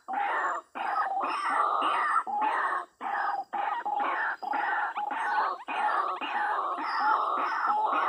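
White-breasted waterhens calling: harsh, croaking calls repeated in runs, broken by short gaps every half second to a second.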